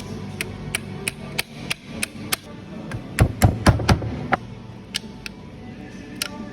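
Sharp clicks and knocks at about three a second, then a quick run of heavier strikes about halfway through, over a low steady hum.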